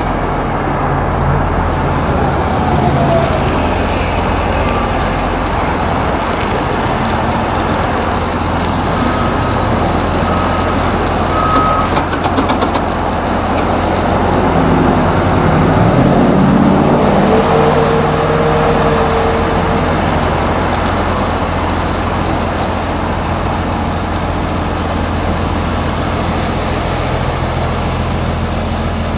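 Street traffic with a large engine running steadily, a low hum throughout; the noise swells as a vehicle comes closer a little past the middle, and there is a brief run of clicks just before.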